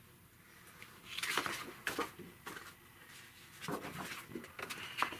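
Framed pictures being handled and swapped: rustling with several light knocks of the frames, bunched about a second in and again near the end.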